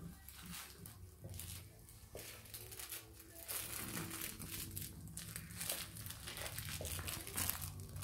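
Maine Coon cat licking and gnawing at a green spiky rubbery toy, making irregular, unappetizing mouth noises of rasping and crackling, louder from about halfway.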